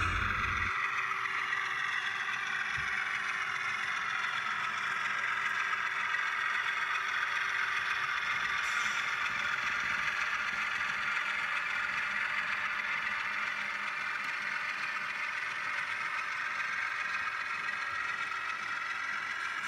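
HO-scale model train, a diesel locomotive hauling double-stack container cars, running along the track: a steady whir and light clatter of the motor and wheels on the rails, easing off slightly in the second half.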